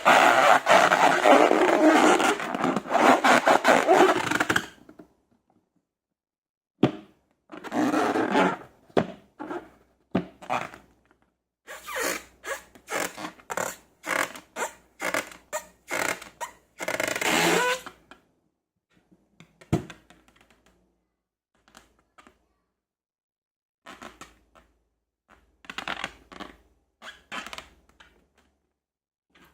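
Slime and balloons being worked by hand: scraping and crackling, a dense stretch for the first few seconds, then short bursts separated by pauses.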